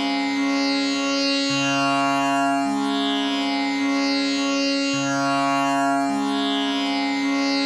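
Tanpura drone tuned to C sharp, its strings plucked in a steady repeating cycle of about three and a half seconds, so the low notes change in turn over a continuous sustained tone with shimmering overtones.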